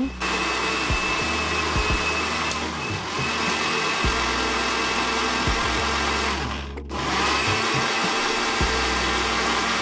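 Electric countertop blender running at speed, whipping a liquid cake batter of oil, sugar, milk, vanilla and eggs. The steady motor whir breaks off for a moment about seven seconds in, then runs on.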